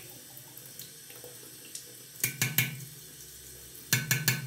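Bathroom sink tap running in a thin, steady stream, with two quick runs of three or four sharp knocks, about two seconds in and near the end.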